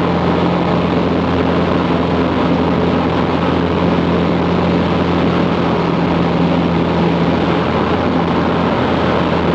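Engine and propeller of a light single-engine airplane droning steadily in flight, heard from inside the cockpit through a camera resting on the instrument panel.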